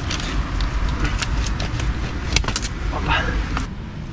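Wind rumbling on the microphone with a steady hiss, and scattered sharp clicks and knocks. The sharpest comes about two and a half seconds in.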